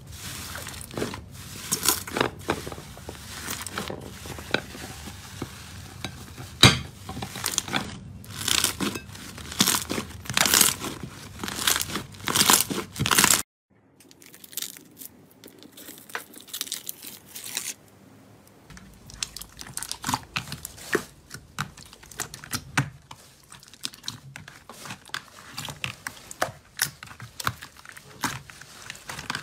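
Hands squeezing and kneading thick slime: a dense run of sticky pops and crackles. It cuts off suddenly about halfway through, followed by quieter, scattered crunchy crackles as a hand presses and pokes into slime full of foam beads.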